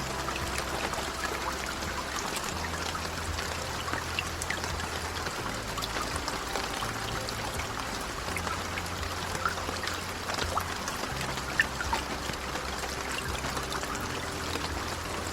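Steady rain with scattered drops falling and dripping, over low, sustained background music.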